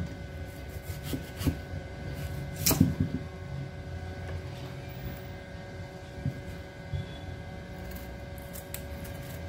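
Kitchen handling sounds while a chayote is being peeled with a small knife at a cutting board: a sharp knock at the start, a louder ringing knock near three seconds in, scattered small clicks and faint scraping. A steady faint hum runs underneath.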